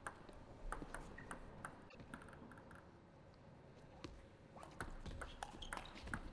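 Faint, scattered light clicks of a celluloid table tennis ball bouncing on the table and off the bats, a few in the first two seconds and a quicker run of them after about four and a half seconds.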